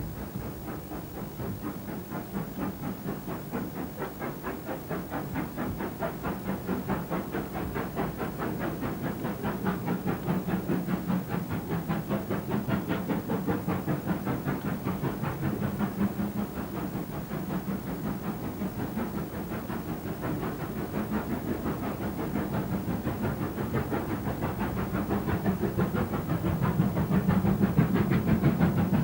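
GWR Castle-class 4-6-0 steam locomotive working under steam, with rapid, even exhaust beats and steam hiss, growing louder as it approaches near the end.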